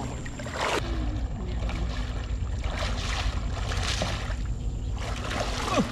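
Water sloshing and splashing around a person's legs as he wades through thigh-deep floodwater, with a steady low rumble underneath.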